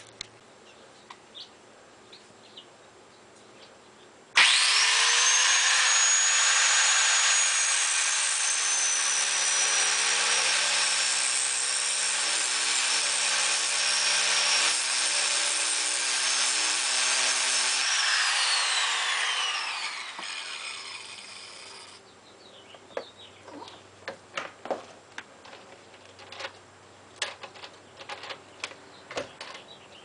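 Electric angle grinder with an abrasive disc switched on about four seconds in and grinding the metal latch of a baggage-door lock for about fourteen seconds, taking it down a little further so it latches. It is then switched off and winds down with a falling whine, followed by light clicks and taps of metal parts being handled.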